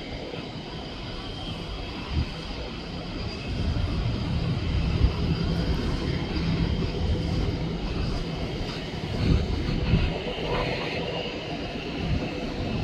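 Jet airliner engines rumbling steadily, growing louder about four seconds in.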